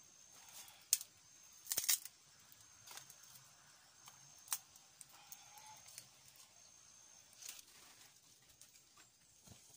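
Faint, scattered sharp snaps and crackles of dry sticks at a small smoky wood cooking fire as it is built up and fed, with a brief cluster about two seconds in.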